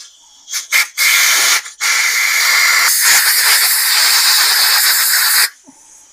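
Compressed air hissing as it blows concrete dust out of freshly drilled anchor holes in a concrete floor: a short blast about a second in, then a longer steady blast that cuts off near the end.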